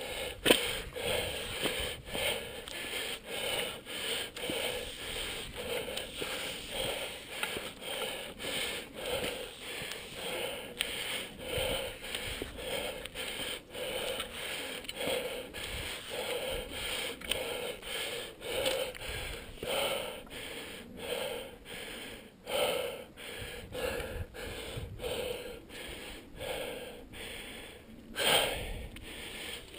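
A climber's heavy, rhythmic breathing, close to the microphone, about one breath a second: he is panting from the exertion of hauling himself up the steep Half Dome cables. There is a sharp knock about half a second in, and a louder breath or gust near the end.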